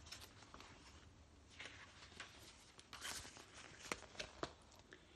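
Faint rustling and scattered soft clicks of a picture book's paper pages being handled and turned.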